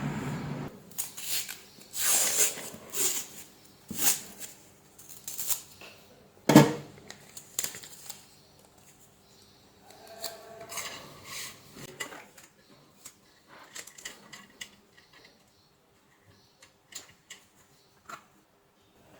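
Small metal hand tools clicking, clinking and scraping on a workbench while a USB cable is being worked on: scattered sharp clicks and snips, the loudest about six and a half seconds in, thinning out towards the end.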